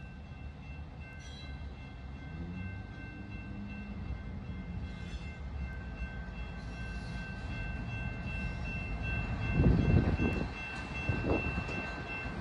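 Grade-crossing electronic bells ringing steadily over the low rumble of a freight train passing through the crossing. A louder low rumble swells briefly about ten seconds in.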